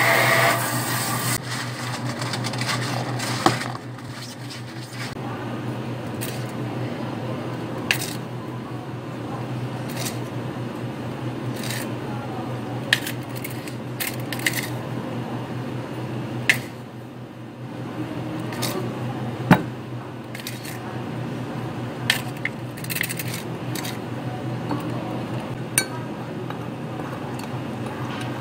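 Thick smoothie pouring out of a blender jug for the first second or so, then a metal spoon and scoop clinking sharply against glass measuring cups about a dozen separate times as iced tea powder is scooped in and stirred, over a steady low hum.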